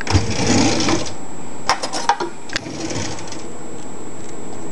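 Handling noises around the puffed, microwaved bar of soap: a rustling scrape through the first second, then several sharp clicks and knocks and a softer rustle, over a steady background hum.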